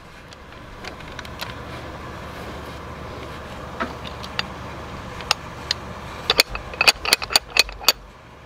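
Sharp metal clicks and knocks from handling an electric mini jackhammer and its chisel bit, a few scattered at first, then a quick irregular cluster near the end, over a steady low hum.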